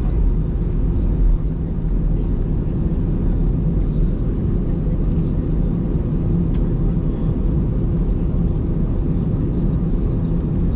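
Steady low rumble of a jet airliner heard inside the cabin as it rolls along the runway just after landing: engine noise and airframe rumble, even in level throughout.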